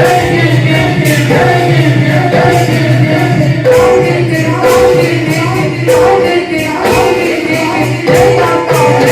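Bhaona devotional music played loud over a PA system: voices singing together in held notes over a steady low drone, with regular jingling percussion strokes.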